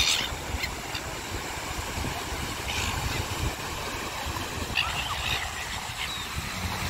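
Silver gulls calling: a few short, harsh squawks, the loudest right at the start and others about three and five seconds in, over a steady low rumble of surf.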